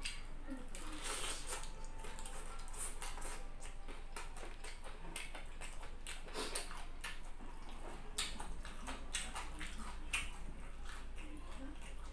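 Close-up chewing and mouth sounds of a man eating crunchy fried chicken and rice: a string of short clicks and smacks.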